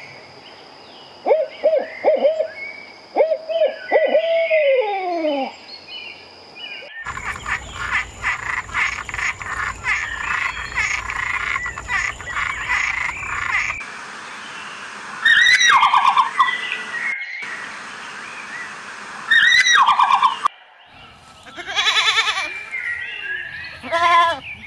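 A run of different animal calls, one clip after another: short calls that glide in pitch, then a dense chorus of rapid repeated calls for several seconds, then a few loud single calls that fall in pitch.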